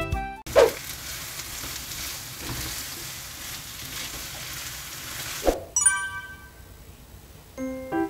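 Julienned potatoes and onion sizzling in oil in a frying pan: a steady frying hiss for about five seconds, opened and closed by a brief swish. A few high chime notes and light music follow near the end.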